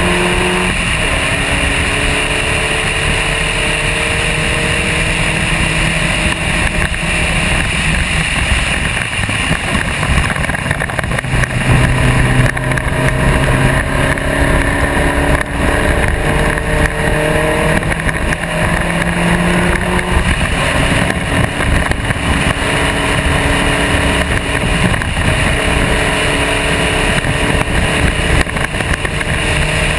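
Spec Racer Ford's four-cylinder engine running hard on track, its pitch climbing again and again and dropping back as the car accelerates up through the gears, with steady wind rush.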